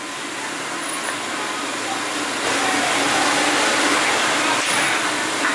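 Hot oil sizzling in a large wok of frying chicken, a steady hiss that grows louder about halfway through.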